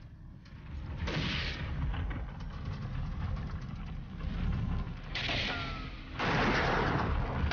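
Low rumble of a galloping bison herd and horses, broken by sharp rifle shots about a second in and about five seconds in, then heavier gunfire from about six seconds in.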